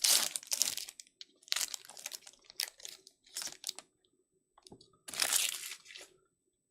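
Trading card packaging being torn open by hand: a plastic wrapper crinkling and tearing in about five short bursts.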